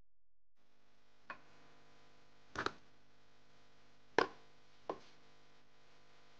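Several sharp clicks and knocks from kitchenware being handled: chopsticks and porcelain bowls on a metal counter. The knocks come singly and in a quick pair, the loudest a little after four seconds in, over a faint steady hum.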